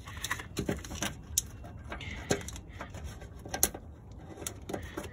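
Hand groping under a tractor's plastic floor cover among the wiring harness, giving scattered light clicks and rustles.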